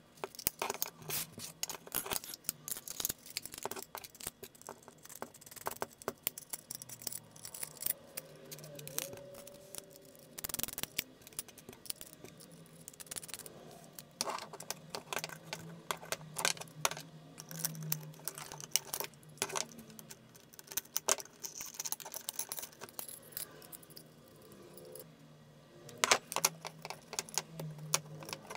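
Handling noise from reassembling a guitar overdrive pedal: irregular small clicks, taps and light metallic clinks as the circuit board, wiring and jacks are fitted into its folded anodized aluminum enclosure, with a louder flurry of clicks near the end.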